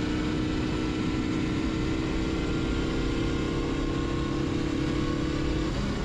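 Benelli Sei 900's air-cooled inline-six engine running at a steady cruise, heard from the rider's seat, its note holding an even pitch, with wind noise on the microphone.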